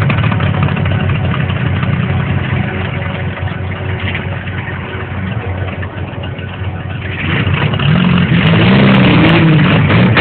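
Car engines running, with a steady rumble at first, then getting louder about seven seconds in as an engine is revved, its pitch rising and falling several times.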